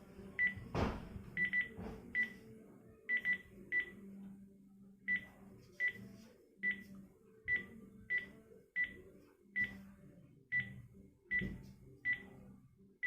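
Panasonic KX-TG3711SX cordless phone handset keys being pressed while stepping through its menus. Each press gives a short high key beep, roughly one a second, with a few quick double presses and a faint click of the button under the beeps.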